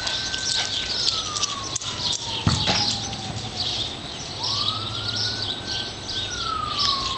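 A siren wailing: its pitch rises over about a second, holds, then falls slowly over a few seconds, and starts rising again about four seconds in. Birds chirp throughout, and there is a single sharp knock about two and a half seconds in.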